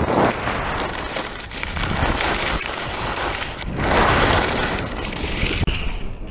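Skis sliding and scraping over spring snow, a steady loud hiss, cutting off abruptly near the end.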